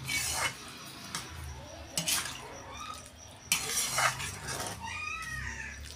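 Metal ladle stirring and scraping around a metal kadai of simmering dried-prawn curry, in several uneven strokes, the longest about three and a half seconds in.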